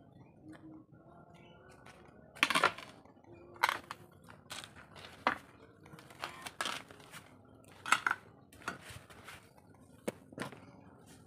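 A clear plastic food tub clattering on a concrete floor: about eight sharp, irregular knocks and clacks, two of the loudest a few seconds apart.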